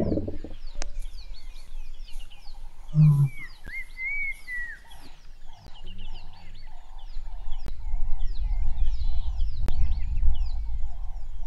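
Birds chirping and whistling in the bush, with a call repeated about twice a second from the middle on, over a low rumble that grows loud in the second half. It opens on the last of a lion's snarl, and a short low sound comes about three seconds in.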